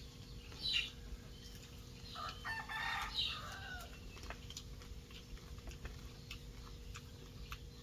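A rooster crowing faintly: one crow of about a second and a half, starting about two seconds in, after a short higher call.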